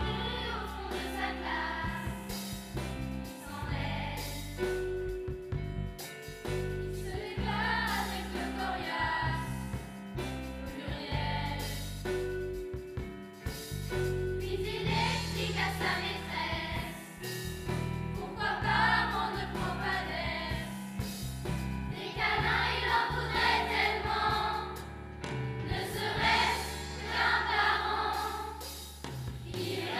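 A large children's choir singing with a live band, over a steady bass line.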